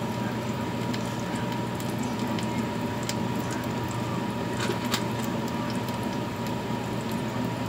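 Korean pancakes (jeon) sizzling in oil in two frying pans: a steady hiss over a constant hum, with a few faint clicks.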